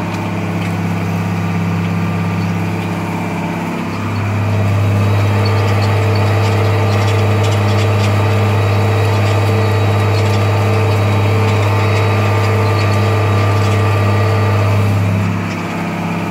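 Tractor engine running steadily under load, heard inside the cab while pulling a reversible plough through the field. It grows louder about four seconds in and eases back near the end.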